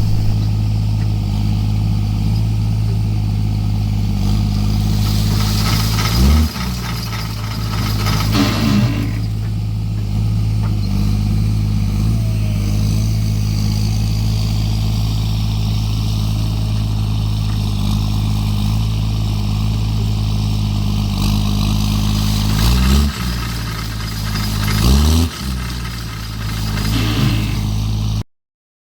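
Engine of almond-harvesting farm machinery running steadily, its pitch dipping and rising briefly a few times as it is revved or loaded. A rushing noise rises over it twice, and the sound cuts off abruptly near the end.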